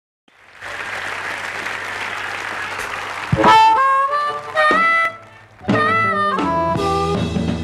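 Crowd applause, then amplified blues harmonica played through a vocal microphone from about three seconds in, in short bending phrases. The band comes in with electric guitar, bass and drums at about six seconds.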